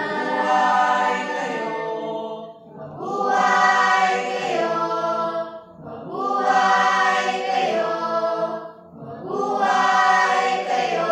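Mixed-voice church choir singing a cappella in sustained chords, in phrases about three seconds long with short breaths between them.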